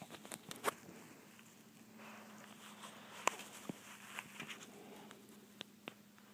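Scattered light taps and rustles of a tabby cat moving about on carpet around a cloth toy, over a faint steady hum.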